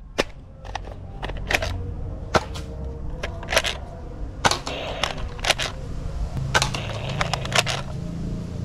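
Toy plastic blaster fired over and over, sharp cracks at irregular spacing about two a second, as its shots knock down small plastic shooting targets, over a low steady hum.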